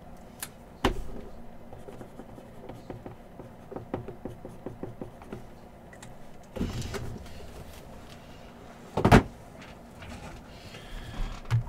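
Handling noises on a tabletop as trading cards and their holders are moved about: scattered light clicks and knocks, with one sharp knock about nine seconds in.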